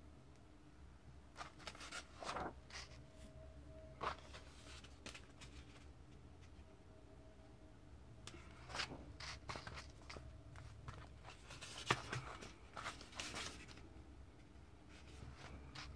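Pages of a comic book being turned by hand: short paper rustles and flicks in several clusters a few seconds apart, the sharpest about twelve seconds in, over a faint steady hum.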